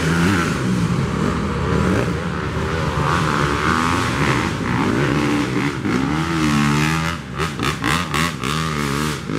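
Dirt bike engines revving hard and unevenly under load on a steep hill climb, the pitch rising and falling again and again, with quick throttle blips near the end.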